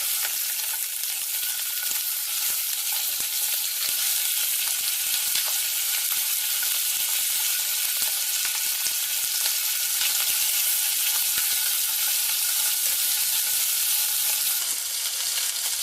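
Food frying in hot oil: a steady, dense sizzle with fine crackling throughout.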